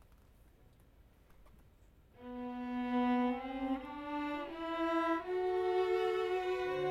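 String orchestra playing an arrangement of old Spanish Christmas carols (villancicos). After about two seconds of quiet hall, a single bowed melody line enters and climbs step by step, a second part joins about halfway through, and a low bass part comes in near the end.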